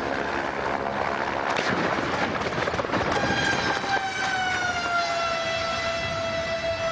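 Helicopter crash: a rough clattering noise with several knocks for about three seconds. Then a steady high-pitched whine starts, sags a little in pitch and holds.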